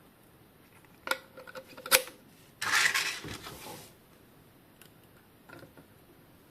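Handling sounds from hard objects: a few clicks and a sharp knock, then about a second of scraping, with a couple of faint clicks later.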